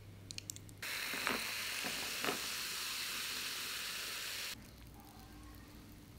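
Cola fizzing over ice in a glass: a steady hiss of bursting bubbles for about four seconds, with a couple of sharp crackles, cutting off suddenly. Faint clicks come before it and quiet room tone after.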